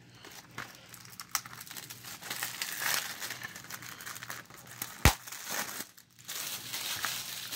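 Plastic shrink-wrap on a DVD case crinkling and tearing as it is peeled off, with a single sharp click about five seconds in.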